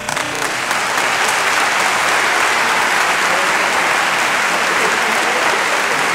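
Audience applauding, the clapping swelling over the first second and then holding steady and loud.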